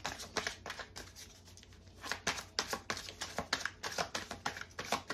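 Tarot cards being shuffled by hand: a quick run of card clicks and slaps that eases off for about a second after the first second, then picks up again.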